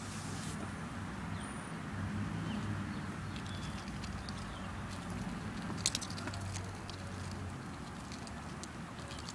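A duck pecking and eating goldfish crackers from the grass, its bill making scattered sharp clicks and snaps, the loudest about six seconds in, over a steady low background hum.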